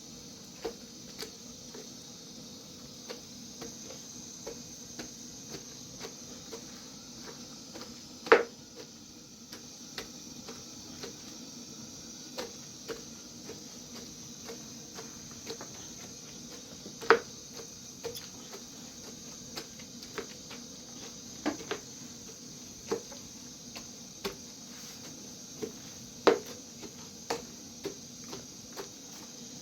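Irregular sharp clicks and knocks, a few every second, over a steady hiss, with three much louder knocks spread through the stretch.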